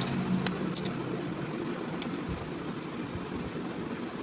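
Steady workshop background hum and hiss, with a few light clicks from parts being handled on the scooter.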